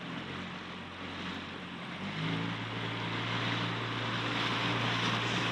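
Small outboard motor on an inflatable dinghy running under way, with water rushing past the hull. About two seconds in the engine speeds up and gets louder as the throttle is opened.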